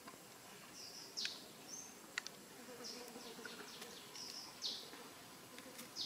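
Faint forest ambience with scattered short, high-pitched chirps and calls, a few sweeping downward, and a couple of sharp clicks a little after two seconds.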